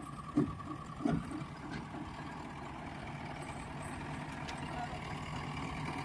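Diesel engine of the tyre-handling machinery idling steadily, with two brief louder sounds in the first second or so.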